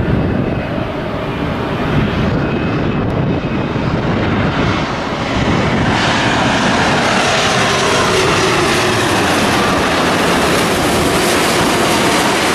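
Boeing 787 airliner's turbofan engines on final approach, gear down, passing low overhead: a steady jet rush that grows fuller and hissier about six seconds in, with a faint tone sliding down in pitch as it goes over.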